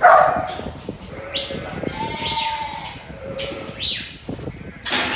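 Sheep bleating in the pens, with several short, high, sharply rising calls among the bleats. A loud sudden noise comes right at the start.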